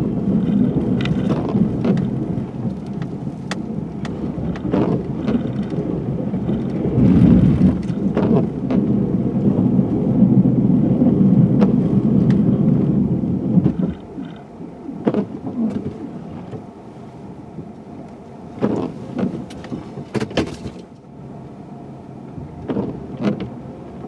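Low rumble of a pickup truck working a snow plow, with scattered knocks and thumps. The rumble drops off suddenly about fourteen seconds in, leaving a quieter rumble with a few more knocks.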